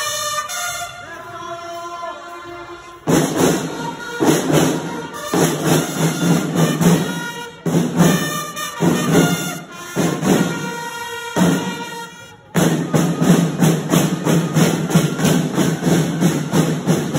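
School marching band's snare drums playing a street-parade march beat. The drumming comes in about three seconds in, after a few held melodic notes, and breaks off briefly a few times before going on.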